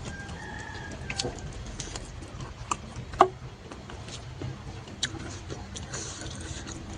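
Eating sounds: scattered sharp mouth clicks and smacks of chewing, the loudest about three seconds in, over a steady low background rumble.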